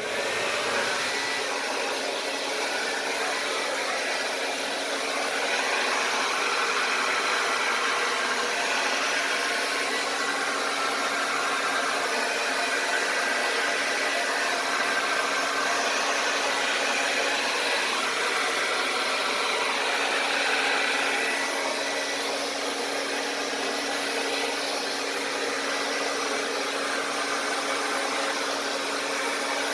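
Handheld blow dryer running steadily on acrylic paint, a constant loud airy whoosh over a low motor hum, swelling slightly now and then as it is moved over the wet pour.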